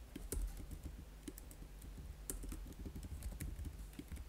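Typing on a computer keyboard: a quick, uneven run of keystroke clicks.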